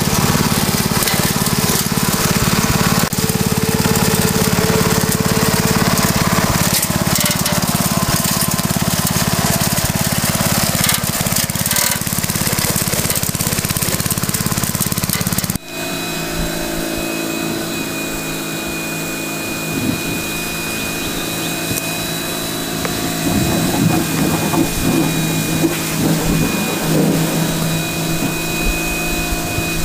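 A ride-on lawn mower's engine running steadily as it drives over rough ground. About halfway the sound changes abruptly to a different steady machine drone with a thin high whine over it.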